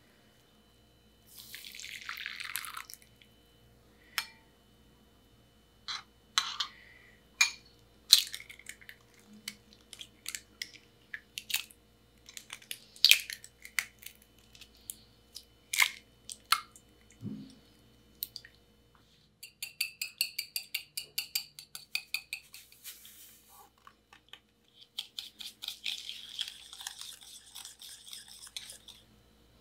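Eggs cracked one after another against a glass bowl: a string of sharp taps and shell cracks, with whites dripping into the bowl. Then a wire whisk beats egg yolks and sugar in a glass bowl. First comes fast, even clicking of the wires against the glass, then a denser whisking scrape near the end.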